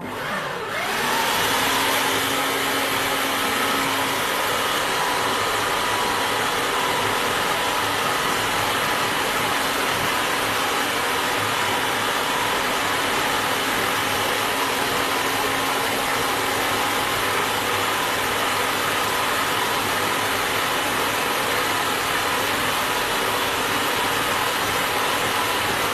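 Idealife food processor motor spinning up as it is switched on, then running steadily while its blade grinds beef into a smooth meatball paste.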